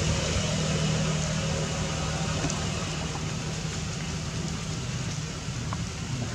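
Steady outdoor background noise: a low rumble under an even hiss, easing slightly in level, with no clear animal calls.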